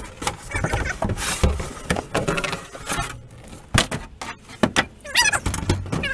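Thin wood wall panel being handled and set against a camper wall: an uneven run of knocks, scrapes and clatters.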